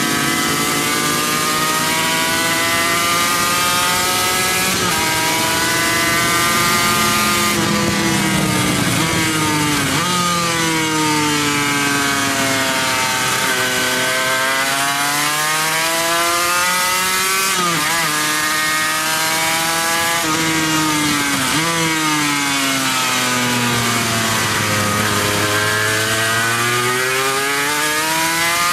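Sport motorcycle engine heard from on board at full racing pace, its revs climbing and falling again and again with sharp drops at gear changes and off-throttle into corners, over a steady rush of wind.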